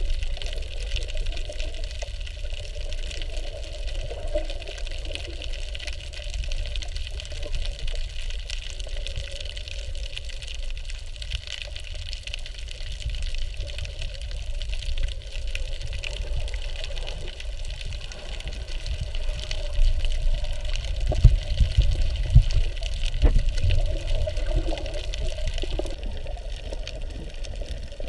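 Underwater ambience picked up by a submerged camera: a steady low rumble of moving water, with a few louder surges about two-thirds of the way through.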